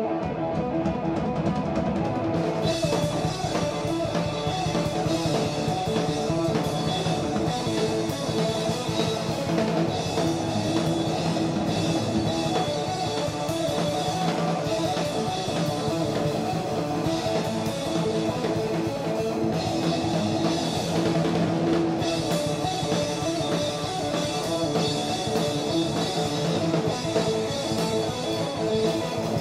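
Live rock played by an electric guitar and a Yamaha drum kit: the drums come in just after the start over the guitar, and cymbals join about two and a half seconds in and keep going.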